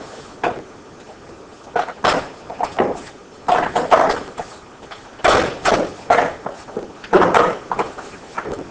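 Irregular clicks and knocks of the A-bike folding bicycle's rear chassis parts being handled and pushed together, as bosses are lined up with their holes.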